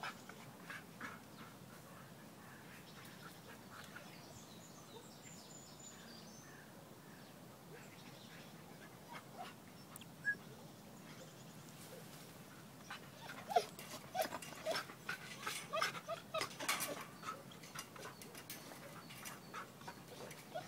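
Siberian husky giving short whines and yips, mixed with clicking and rattling of the wire-mesh fence as it scrabbles and climbs. These sounds are bunched in a busy stretch past the middle; before that there are only a few faint clicks.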